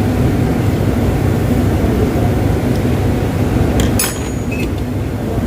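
Steady low rumbling background noise, with a short, bright clink about four seconds in and a smaller click just after.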